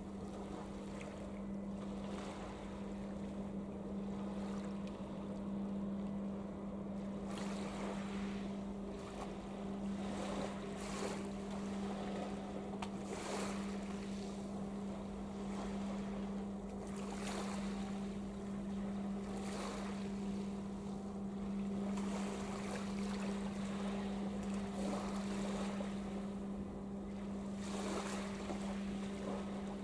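Steady low engine drone from a large container ship and its attending tug, held on one tone throughout. Irregular gusts of wind buffet the microphone.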